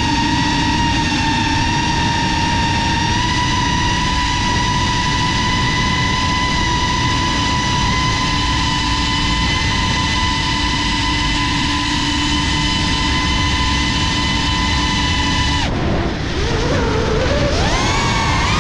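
Cinelog 35 cinewhoop's brushless motors whining at a steady pitch under constant throttle. About three seconds before the end the whine drops off abruptly as the throttle is cut, then climbs back up in pitch as the throttle is punched again.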